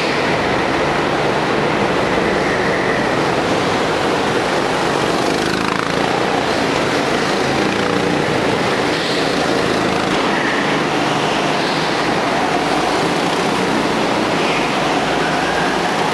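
Go-kart engines running continuously on an indoor track, a steady noise that echoes through the hall. Every few seconds a kart rises in pitch as it comes through the corner.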